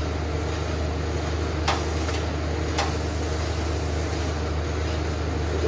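Steady low machine hum, with two sharp clicks about a second apart near the middle.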